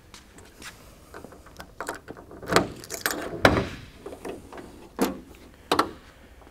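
Keys jangling and a key working the trunk lock of a 1960 Studebaker Lark, a run of sharp metal clicks and clunks, then two more clunks as the trunk latch lets go and the lid swings open near the end.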